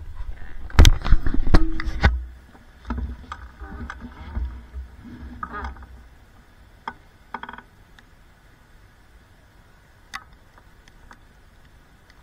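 Knocks and clatters of an action camera being handled close to its microphone, loudest and densest about a second in over a low rumble, then thinning out to a few faint clicks.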